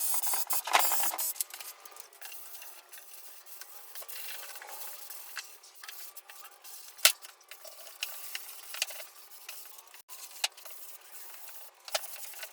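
Workshop handling noises: scattered light clicks and knocks over rubbing and scraping. It is busier and louder for about the first second, with one sharp knock about seven seconds in.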